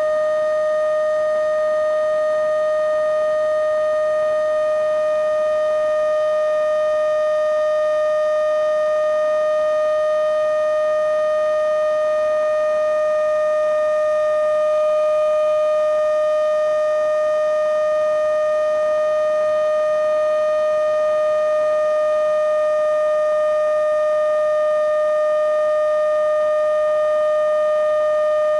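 Steady whine of a remote-control plane's electric motor at constant throttle, heard through a camera mounted on the plane. It is one unchanging pitch with a stack of overtones and holds at an even level.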